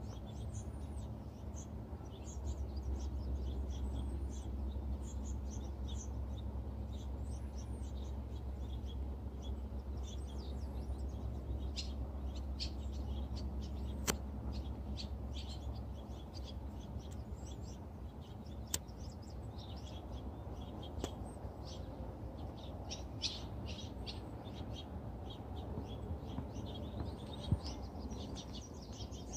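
Small birds chirping in many short, high calls throughout, over a steady low background rumble, with a couple of sharp clicks in the middle.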